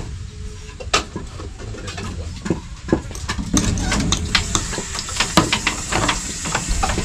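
Hand tools working bamboo roof poles: a few scattered knocks, then from about halfway a busier run of sharp clicks and scraping with a high hiss.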